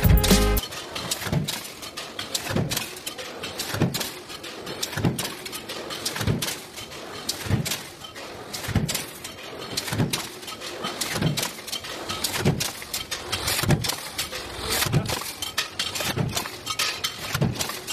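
Sheet-metal stamping press running continuously, its ram coming down with a low thud about every 1.2 seconds, with metallic clatter and clicks between strokes.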